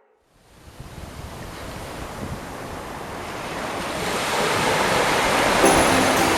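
An even rushing noise, like surf and wind, fading in from silence and growing steadily louder. Music starts near the end.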